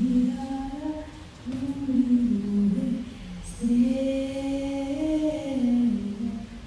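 A single voice singing a slow, unaccompanied melody in three phrases, the last one held the longest.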